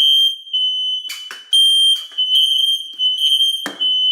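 Smoke alarm's piezo horn sounding a loud, high-pitched tone in repeated short beeps, set off by canned test smoke sprayed into its sensor. Two brief noises cut in, about a second in and near the end.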